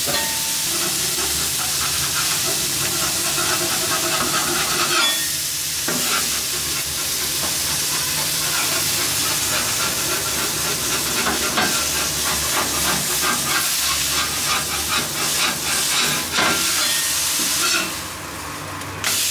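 Thin smashed beef patty sizzling on a hot steel flat-top griddle. A metal spatula scrapes under it against the steel to lift it off, adding short scraping clicks over the hiss. The sizzle quietens briefly just before the end.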